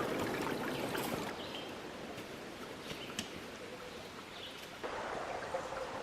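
A stream flowing in a steady rush, with a few light clicks over it. The sound steps up suddenly about five seconds in.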